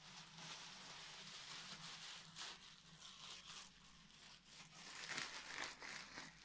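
Crinkly packaging crumpled and rustled by hand in quick, irregular crackles, a little louder about five seconds in.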